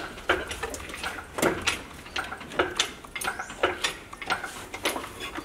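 Irregular metallic clicks and clanks, about two a second, from an engine hoist lifting a car engine out of its bay.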